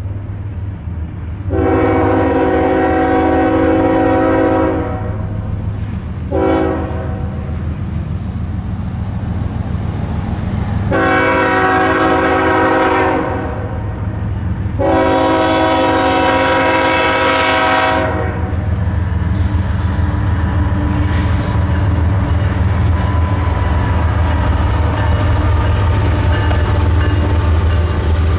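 Diesel locomotive's air horn sounding four blasts (long, short, long, long) over the steady low rumble of a passing train, which grows louder after the last blast.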